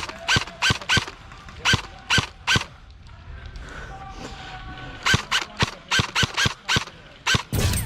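Airsoft rifle firing repeated single shots, each a sharp snap: a string of about seven shots, a pause of a couple of seconds, then a quicker string of about nine. A loud burst of noise comes near the end.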